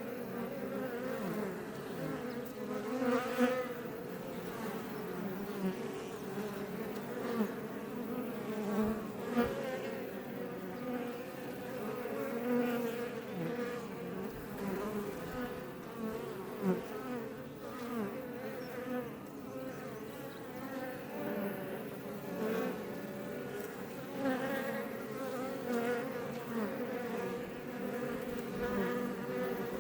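Swarm of Iberian honey bees buzzing steadily at the front of a Langstroth hive, close up. Every few seconds a single bee flies loudly past close by, its buzz bending in pitch as it passes.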